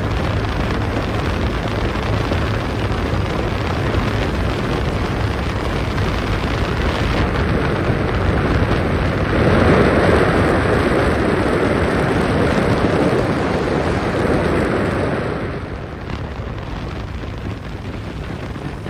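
Powerboat running at speed: engine and water noise mixed with heavy wind buffeting on the microphone. It swells louder for several seconds past the middle, then eases off near the end.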